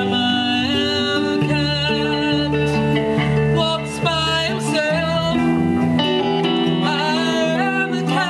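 Live band playing: two electric guitars and an electric bass through amplifiers, with a woman singing.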